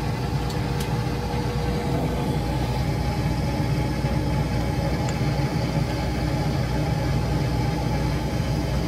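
A machine running steadily with a low, even hum and a faint steady tone, unchanged throughout.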